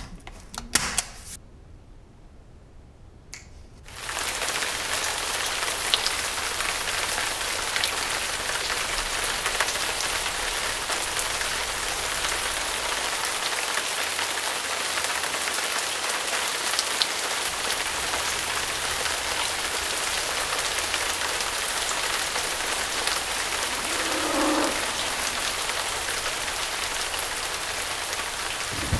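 A few sharp snaps of a hand staple gun, then, about four seconds in, steady rain starts suddenly as an even hiss that goes on throughout.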